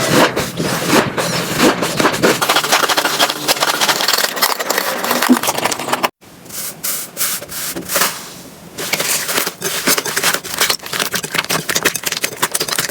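Slime being pressed and squeezed by hand, with dense crackling and popping clicks. It cuts off abruptly about six seconds in, and a second stretch of the same clicky squishing follows.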